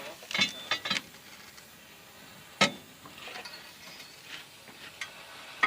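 Metal tools and parts clinking and knocking during work on an excavator's swing motor: a quick run of sharp clinks in the first second, one loud knock a couple of seconds later, and a few lighter clicks near the end.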